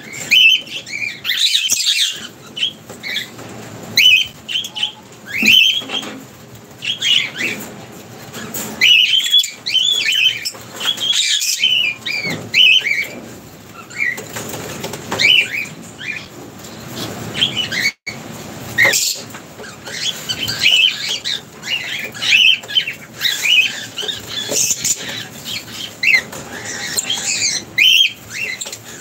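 Lovebirds chattering with a constant stream of short, shrill chirps, broken now and then by brief wing flutters.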